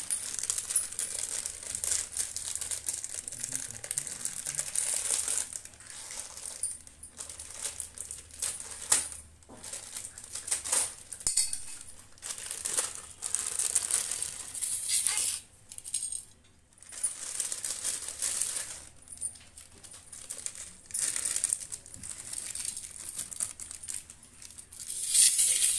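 Plastic wrapper of a Maggi instant-noodle packet crinkling and rustling in irregular bursts as it is handled and opened, with a few light metallic clinks against a steel plate.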